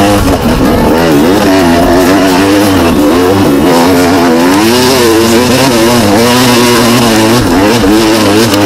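Husaberg TE 300's two-stroke single-cylinder enduro engine heard on board, revving up and down again and again as the bike is ridden along a rough dirt trail.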